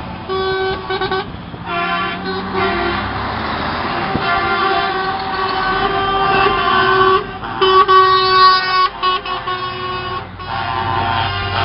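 Several vehicle horns honking at once, some in long held blasts and others in short broken toots, over the low rumble of engines.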